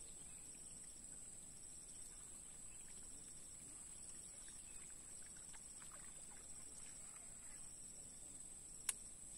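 Faint outdoor quiet filled by a steady high-pitched insect drone, with a single sharp click near the end.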